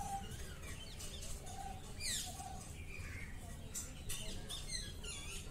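Birds chirping in the background: scattered short chirps that slide downward, several in quick succession at times, over a low steady rumble.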